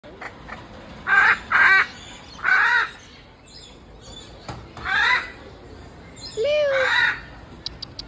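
Hyacinth macaw squawking: five loud, harsh calls spread over about six seconds, the first two close together.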